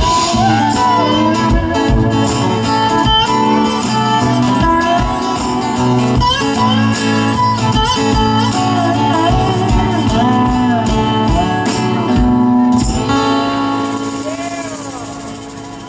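Live country band playing the instrumental close of a song: strummed acoustic guitar, drums keeping time, and lead guitar lines that bend in pitch. About thirteen seconds in, the band lands on a held final chord under a ringing cymbal wash.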